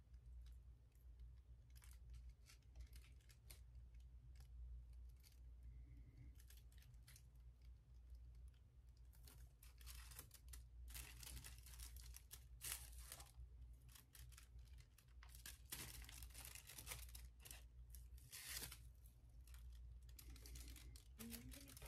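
Faint rustling and crackling of a sheet of printing paper being peeled back from a gel printing plate while the pressed leaves are taken out from under it. The rustles come in short, scattered bursts that grow busier about halfway through.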